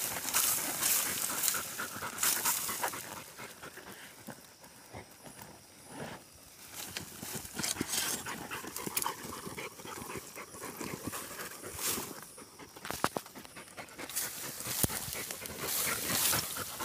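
Hunting dog panting close by, over a steady rustle and crackle of dry straw and grass being pushed through.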